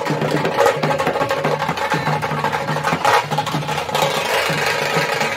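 Dhol drums playing a steady, repeating beat over the noise of a crowd.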